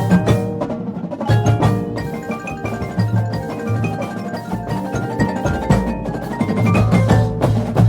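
Drum and bugle corps percussion passage: quick runs of struck mallet notes on marimba and glockenspiel over repeated drum hits.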